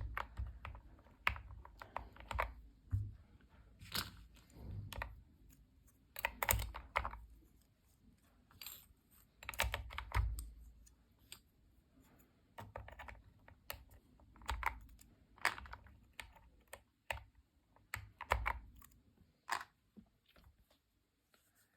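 Irregular plastic clicks from linear mechanical keyboard switches being fitted into a hot-swap switch tester, some coming in quick clusters.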